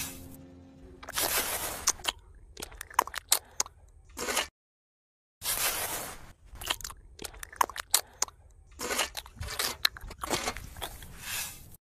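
Small metal trowel scraping and spreading wet cement mortar on a board: irregular bursts of gritty, wet scraping with sharp little ticks, broken by a short dead-silent gap about halfway through.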